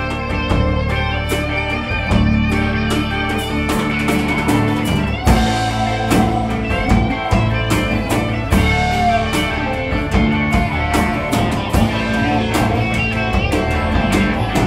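Alt-country rock band playing live: electric and acoustic guitars over bass guitar and drum kit, with sustained guitar notes and regular cymbal strikes.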